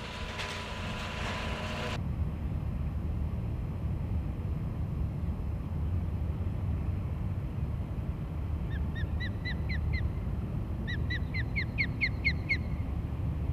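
An excavator demolishing a wooden cottage for the first two seconds, then a steady low wind rumble on the microphone. Near the end an osprey calls in two quick runs of short, rising whistled chirps.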